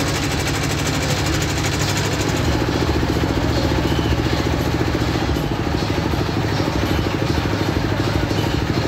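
Motorboat engine running steadily at an even, fast pulse.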